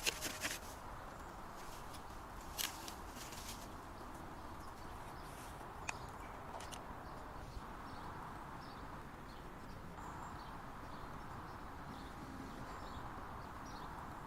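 Steady outdoor background noise with a few sharp clicks in the first seconds and faint, short high chirps through the second half.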